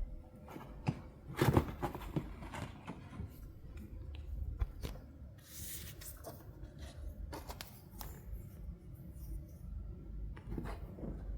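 Cats shifting about in a basket: scattered rustles, scratches and light knocks, the loudest a little over a second in, with a brief hissing rustle about five and a half seconds in.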